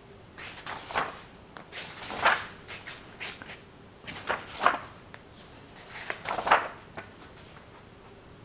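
Pages of a paperback book being turned by hand: four papery swishes about one and a half to two seconds apart, each followed by a little rustling as the page settles.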